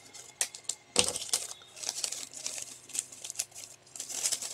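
Small plastic packets of diamond painting drills crinkling and rustling as they are handled, with irregular light clicks and one sharper click about a second in.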